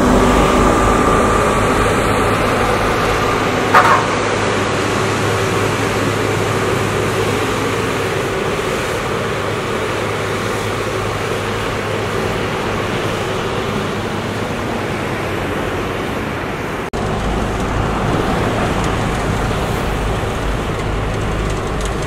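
XGMA double drum asphalt roller's diesel engine running steadily with a low drone, with one short sharp squeak about four seconds in. About seventeen seconds in, the sound breaks off and resumes a little louder.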